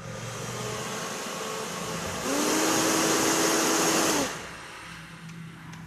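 Repaired hair dryer running with its fan blowing. It steps up to a louder, higher speed about two seconds in and drops back to the lower setting about two seconds later as its speed switch is tried; the dryer is working again.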